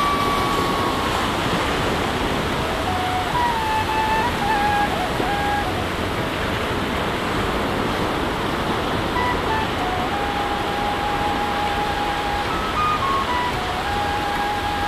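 Steady hiss of sea surf on a beach, with a soft single-line melody of background music moving from note to note over it.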